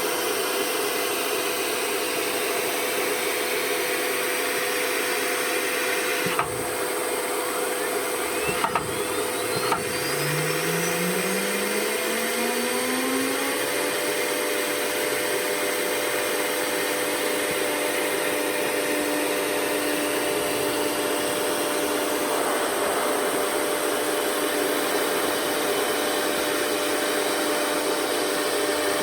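CNC router spindle starting after cycle start: a few clicks, then a rising whine as the spindle spins up, settling into a steady whine over a constant rushing hiss of air.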